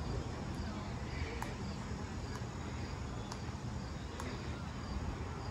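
Open-air ambience: a steady hiss with a low rumble, faint distant voices, and a faint sharp click about once a second.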